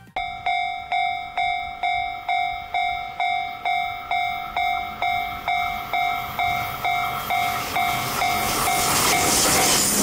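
Japanese railway level-crossing warning bell ringing evenly, about two dings a second. From about seven seconds in, the rolling noise of a JR West 521 series electric train passing the crossing swells until it is louder than the bell.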